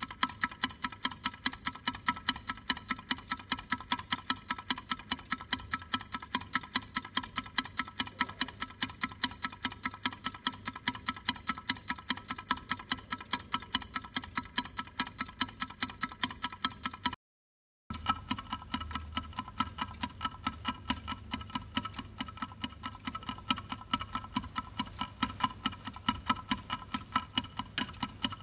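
Clock ticking in a fast, even rhythm of sharp, ringing ticks. The ticking cuts out completely for under a second about seventeen seconds in, then carries on.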